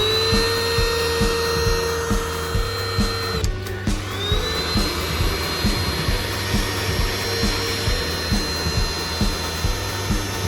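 Portable mini car vacuum cleaner motor running with a steady high whine. It cuts out briefly about three and a half seconds in, then spins up again with a rising whine and runs on. Background music with a steady beat plays underneath.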